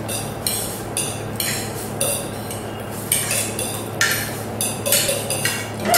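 Noodles being eaten with forks from plates: a run of about a dozen short, irregular scrapes and clinks of forks against the plates.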